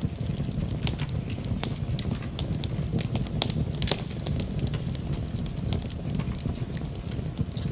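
Wood fire burning in a fireplace: a steady low rumble of the flames with frequent irregular crackles and pops.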